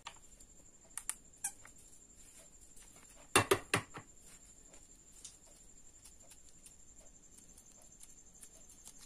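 Hot glue gun being used on a folded craft-foam circle: a few faint clicks, then two or three sharp clacks about three and a half seconds in, with quiet handling of the foam between.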